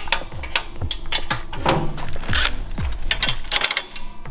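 Ratchet wrench clicking in quick runs as the exhaust flange nuts are tightened against the cylinder head, over background music with a steady beat.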